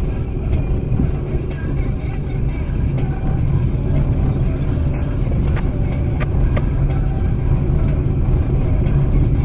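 Car driving along a road, a steady low rumble of engine and road noise.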